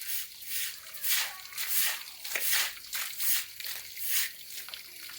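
Rhythmic crunching of packed snow, about three crunches every two seconds.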